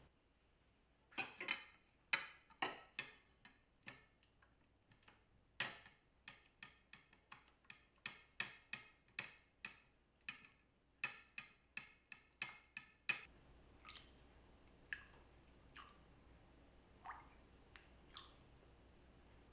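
A rubber spatula stirring chocolate ganache with mixed berries in a stainless steel bowl, knocking and scraping against the metal in quick irregular clicks, about two a second. The clicks stop about thirteen seconds in, leaving only a few scattered ticks.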